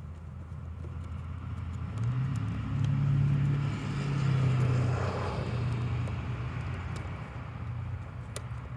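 A motor vehicle going past: a low engine hum with tyre noise that grows louder over the first few seconds, peaks around the middle and fades away.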